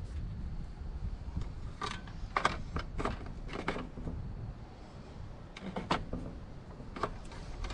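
Oil dipstick being pulled out of a riding mower engine's fill tube and pushed back in: two clusters of short plastic clicks and scrapes over a low rumble. It is a check of the oil level just after fresh oil has been poured in.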